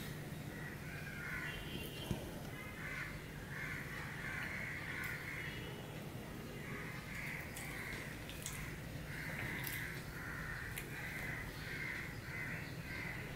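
Crows cawing over and over, a harsh call every second or so, over a steady low hum, with a few faint clicks from eating.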